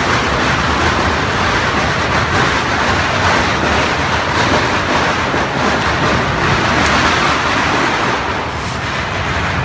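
Firecrackers going off in a dense, continuous crackle.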